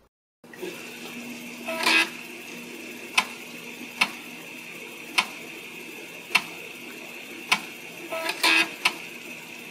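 Retro-computer loading sound effect: a steady mechanical hum with a single sharp click about once a second and two short bursts of clicking, one near the start and one near the end, like a disk drive being read.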